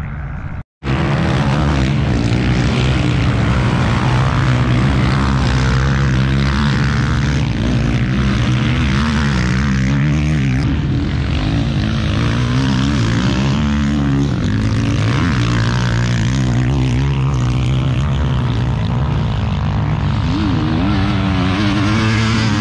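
Loud, steady engine drone with a low hum that wavers slightly, starting after a brief cut about a second in.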